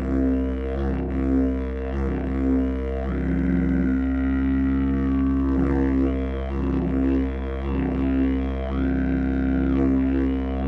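A didgeridoo in B, made by Paco Moreno, played as a continuous low drone. It pulses about once a second at first, then the player's mouth sweeps the overtones upward and holds them a couple of times.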